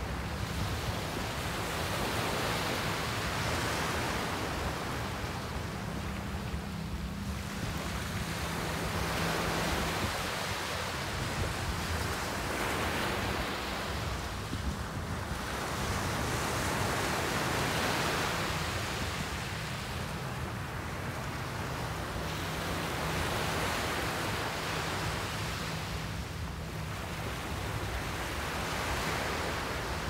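Small waves breaking and washing up a sandy beach, the surf swelling and falling back every few seconds.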